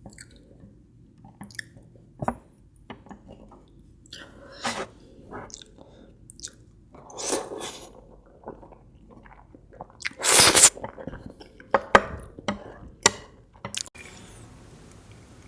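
Close-miked chewing and wet mouth sounds of a person eating spicy instant fried noodles and egg: scattered soft clicks and squishes, with a louder, longer burst about two-thirds of the way through.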